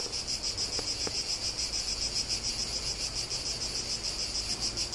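Cicadas singing: a steady, high-pitched buzz that pulses rapidly.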